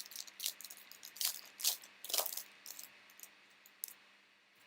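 Trading cards being handled and flicked through by hand: a run of short, crisp rustles and clicks over the first three seconds, then only a few faint ticks.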